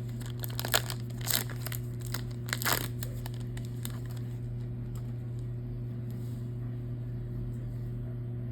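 Trading card pack wrapper crinkling and tearing as the pack is opened, in a few short bursts over the first three seconds, then settling. A steady low hum runs underneath.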